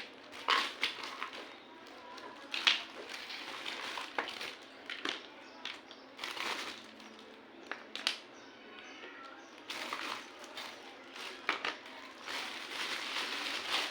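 Small plastic toy parts and their packaging being handled: crinkling and rustling wrap, broken by sharp plastic clicks and taps, the loudest about two and a half seconds in.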